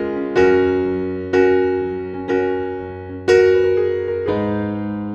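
Background music: slow keyboard piano, a new note or chord struck about once a second and fading away before the next.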